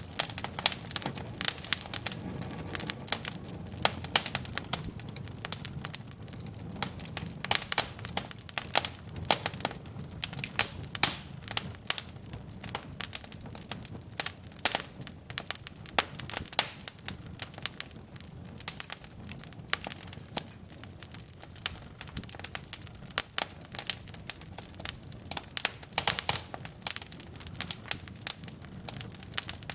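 Wood logs burning in a fireplace: irregular crackling and sharp pops over a low rumble of flames.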